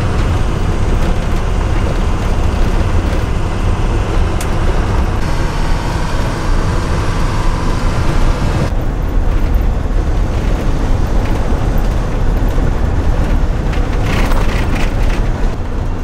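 Steady low rumble of a school bus driving on a gravel road, heard from inside the cab: engine and tyre noise on the gravel. The sound changes character abruptly about five and nine seconds in.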